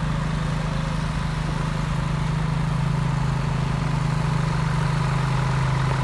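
Diesel engine of the concrete-pouring machinery running steadily at a constant speed, a low even hum.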